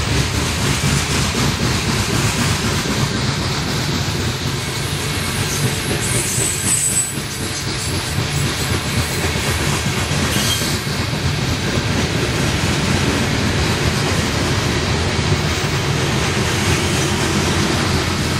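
Loaded coal cars of a long freight train rolling past steadily, wheels clicking over rail joints. Brief high-pitched wheel squeals come about a third of the way in and again just past halfway.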